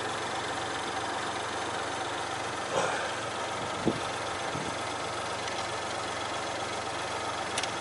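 Car engine idling steadily, with a few short sharp clicks and knocks about three and four seconds in and again near the end.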